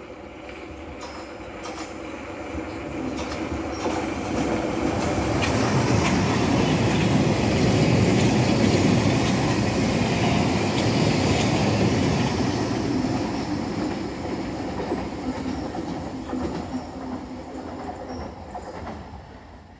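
London Underground train passing along the platform. Its sound builds over several seconds, is loudest around the middle, and fades away near the end.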